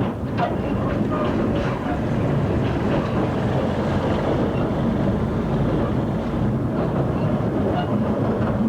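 Narrow gauge train running: a steady rumble with light rhythmic clatter of wheels on the rail joints.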